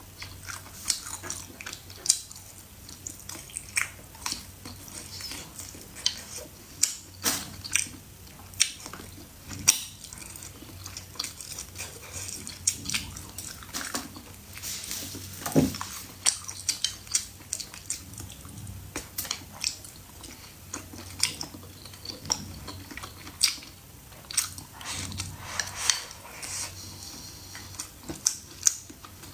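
Close-miked mukbang eating: a person chewing and biting, with many short wet clicks and smacks of the mouth, several a second.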